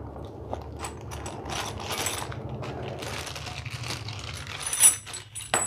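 Clear plastic packet crinkling as metal hand tools inside it are handled, with scattered light clicks and two sharp metallic clinks of the tools near the end.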